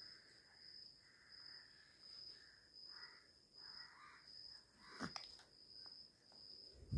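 Near silence: faint room tone with a thin, steady high-pitched tone, soft faint rustles, and a single small click about five seconds in.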